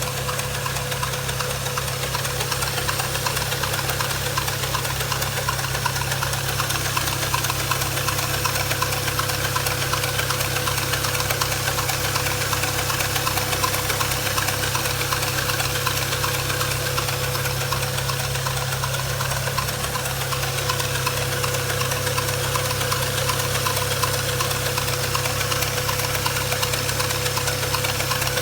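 BMW N54 twin-turbo inline-six idling steadily with a steady whine over a fast ticking rattle, a noise from a faulty engine pulley on the belt drive.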